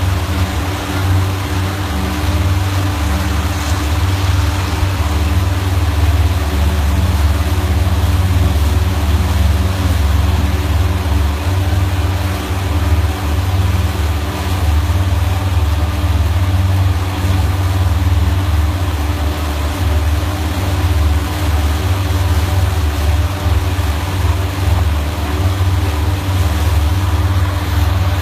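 Motorboat engine running steadily under way, a deep unbroken rumble, with the rush of water from the boat's wake.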